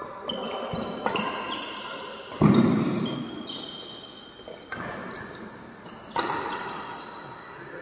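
Badminton rally: several sharp racket hits on the shuttlecock, the loudest about two and a half seconds in, each ringing on in the hall, with short high squeaks of shoes on the court.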